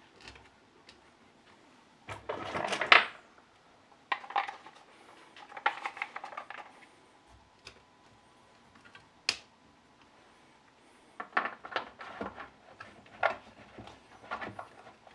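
Hand tools and small metal parts being handled and set down on a workbench: irregular clinks, scrapes and rattles. The loudest clatter comes about two to three seconds in, with a single sharp click near the middle and a quick run of clicks toward the end.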